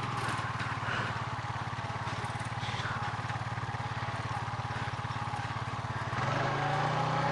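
Small engine of a ride-on vehicle running steadily at low speed with an even, rapid pulse, picking up slightly in pitch and loudness near the end.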